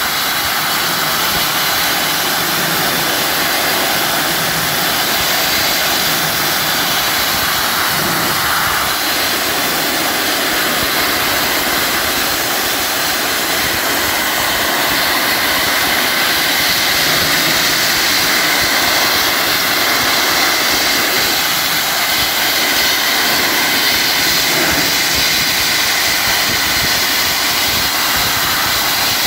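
Dustless Blasting wet abrasive blaster nozzle spraying a stream of compressed air, water and abrasive against rusted steel, stripping it to bare metal: a loud, steady hiss that does not let up.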